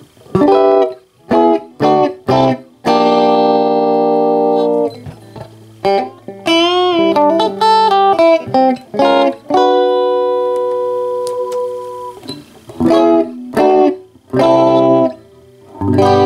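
Guitar played through a Fender Acoustasonic 30 solid-state amp with its reverb on: short chord stabs, a long held chord, and a run of notes with wavering pitch in the middle. The amp is working cleanly after a no-power fault was repaired.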